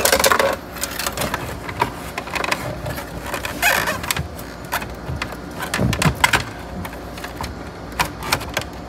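Irregular plastic clicks, knocks and scrapes as a double DIN stereo in its mounting kit is handled and slid into the dash opening, with louder scraping about four seconds in and again about two seconds later.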